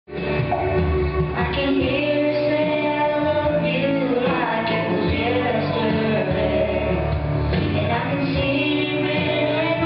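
A boy singing into a handheld microphone over a recorded instrumental backing track.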